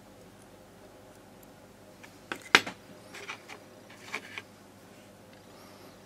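Small metal clicks of a fine tool working in the mechanism of a disassembled 1950s Rollalite lighter: a quick cluster of about half a dozen clicks starting about two seconds in, the first ones the loudest.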